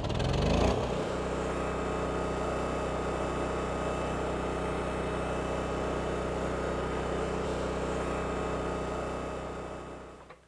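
Kohler portable gas generator's engine catching and revving up within the first second, then running steadily at constant speed. The sound fades out near the end.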